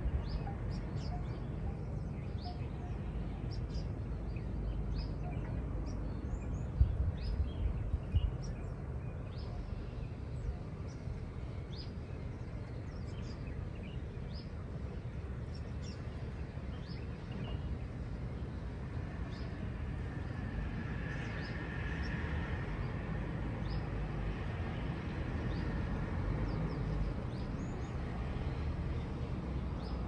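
Small birds chirping in short, scattered calls over a steady low outdoor rumble. A couple of brief low bumps come about a quarter of the way in, and a broad soft swell of noise rises and fades in the second half.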